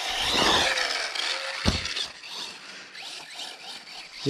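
Arrma Typhon 6S BLX brushless RC buggy driving across grass: its motor whirring, with the pitch falling early on, and a single thump under two seconds in.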